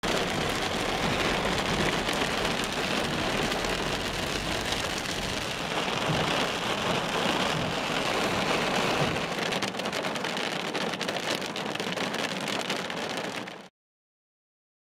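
Heavy rain hitting a car's windshield and body, heard from inside the cabin as a steady hiss, with more separate drop hits from about two-thirds of the way in. It cuts off abruptly to silence near the end.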